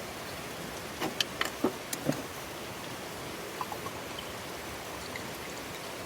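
Steady hiss of light rain, with a quick run of about five knocks and clicks about a second in and a few faint ticks a little later.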